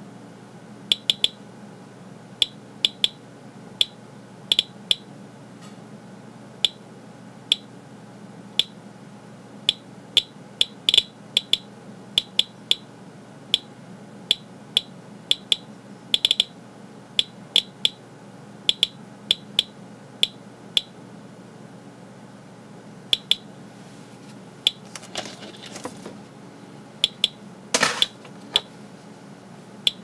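Geiger counter with a pancake probe clicking at irregular, random intervals, about one to two clicks a second (around 100 counts a minute). It is picking up the faint radiation from americium-241 that escapes through the case of an ionization smoke detector. Near the end there is a brief rustle and then a single louder knock.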